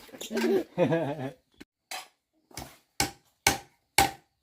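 A child's voice briefly, then a series of sharp tool strikes on wood, about two a second, getting louder, each with a short ring.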